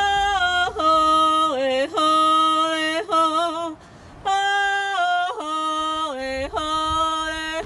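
A woman singing solo and unaccompanied: long held notes that step down in pitch, joined by quick wavering turns, with a short breath break about four seconds in.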